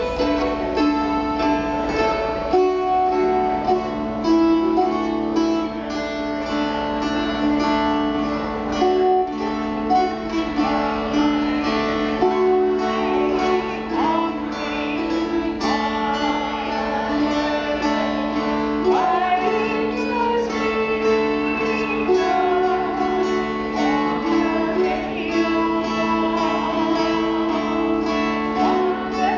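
Two dulcimers playing a gospel hymn tune in duet, a plucked melody over steady held drone notes.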